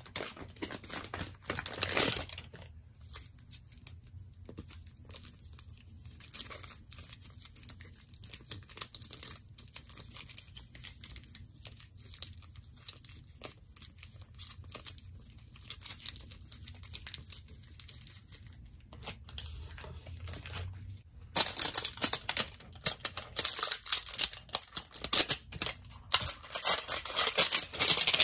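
Clear plastic crinkling as hands open a cellophane packet and shuffle photocards in plastic sleeves, in scattered soft bursts. About two-thirds of the way in it turns into louder, continuous crinkling and tearing as the cellophane shrink wrap is pulled off a CD album.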